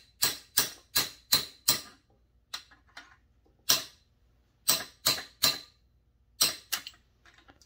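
Small hammer tapping a pin punch to drive the trigger pin out of an Echo CS-680 chainsaw's handle: sharp, ringing metal taps, a quick run of five at about three a second, then lighter scattered taps in twos and threes.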